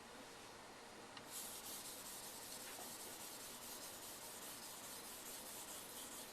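Steel knife edge, an AEB-L stainless blade, being stroked back and forth on a wet waterstone: a soft rasping hiss that starts about a second in and carries on stroke after stroke.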